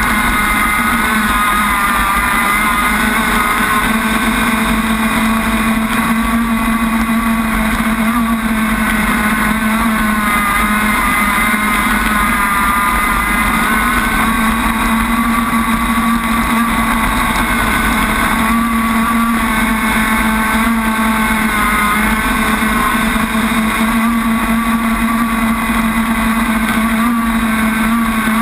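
Enforcer Crackerbox RC boat's motor running flat out, heard from onboard the boat. Its pitch wavers slightly as the hull runs across chop, over a steady hiss of water spray.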